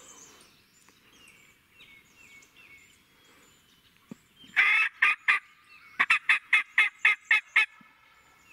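Wild turkey gobbler gobbling once, a loud rattle about halfway through, followed a second later by a quick, even run of about eight turkey yelps. A songbird chirps faintly behind.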